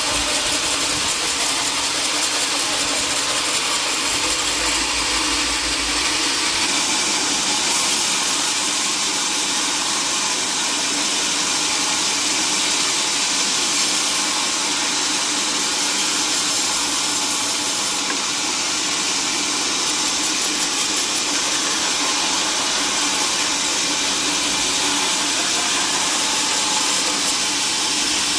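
Sawmill machinery running steadily: a continuous mechanical noise with a fixed low hum under a strong high hiss.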